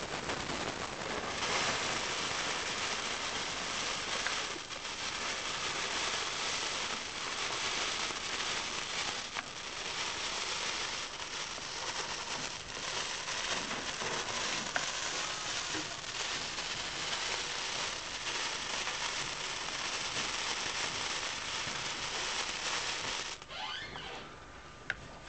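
A burning sparkler fizzing and crackling steadily, with a few sharp clicks. It cuts off suddenly shortly before the end.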